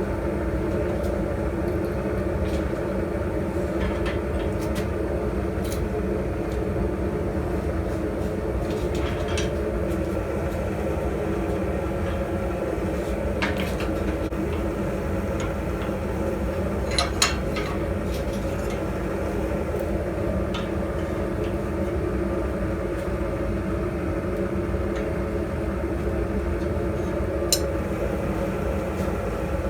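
Blacksmith's forge running steadily, a constant rushing noise while the steel heats, with a few sharp clicks, two of them close together about halfway through.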